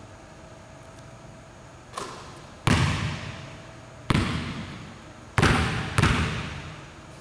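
Basketball bouncing on a hardwood gym floor: a softer bounce about two seconds in, then four loud ones at uneven spacing. Each rings out with a long echo in the gym.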